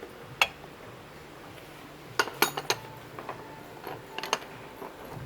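Metal hand tools and steel parts clinking and tapping against each other in short clusters of sharp clicks: one about half a second in, a quick run of several around two and a half seconds, and a few more near four seconds.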